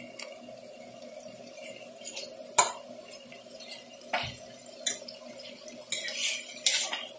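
Metal utensil stirring vegetables in a stainless steel pan, giving a handful of sharp clinks and scrapes against the pan, more of them near the end, over a steady faint hum.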